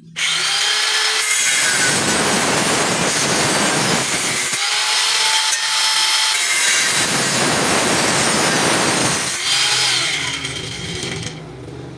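Hand-held power cutter with a spinning disc starting up and cutting light steel framing: two heavy cutting stretches with a free-running whine between them around the middle, then winding down from about ten seconds in.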